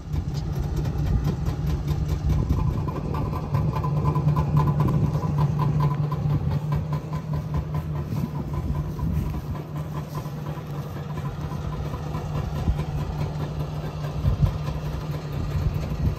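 Trabant Kübel's two-cylinder two-stroke engine idling steadily.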